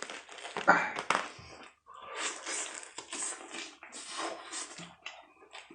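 Close-up mouth noises of a person eating lobster: chewing and smacking in irregular bursts, with a few short clicks near the end.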